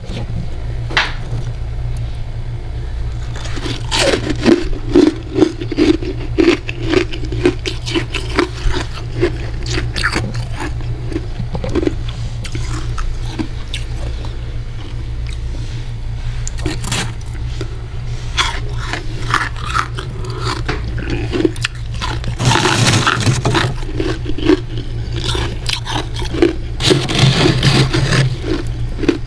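Metal spoon scraping and scooping packed freezer frost: a run of crunchy, scratchy strokes, densest about four seconds in and again near the end, over a steady low hum.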